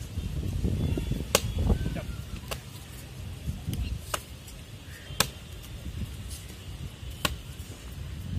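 A handheld kicking paddle struck by kicks, giving five sharp smacks at irregular intervals of one to two seconds; the loudest comes a little past the middle.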